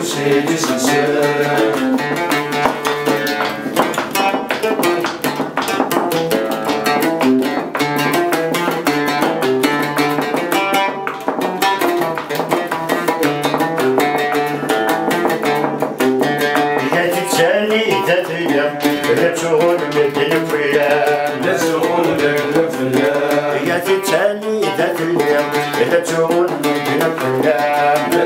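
Algerian mandole played live: a run of quick plucked notes, with a man's voice singing along over the last ten seconds or so.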